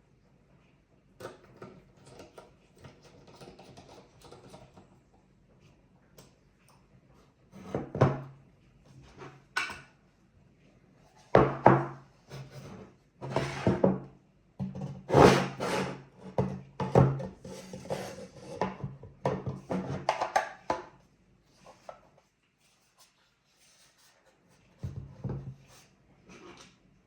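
Hands handling NAS hardware: an irregular run of knocks, clicks and scrapes, busiest in the middle, with one more knock near the end.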